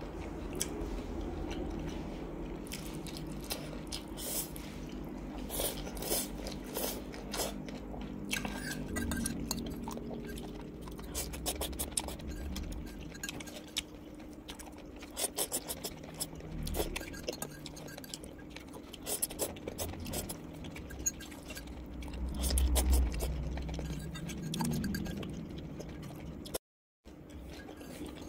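Chewing of spicy instant noodles, with a metal fork scraping and clinking against a ceramic bowl in many short clicks. The sound cuts out briefly near the end.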